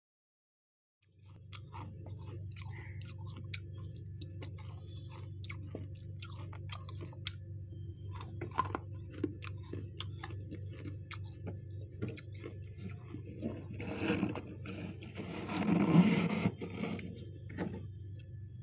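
Fingers scraping and crunching thick powdery frost inside a freezer: fine crackles at first, then louder scraping bursts about two-thirds of the way through, over a steady low hum that starts about a second in.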